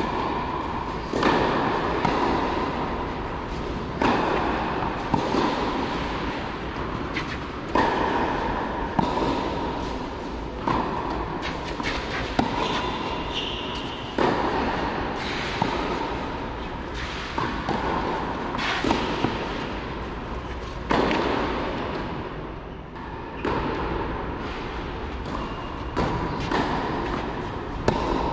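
Tennis rally: the ball is struck back and forth with rackets, a sharp hit every second or two, echoing in a large covered hall.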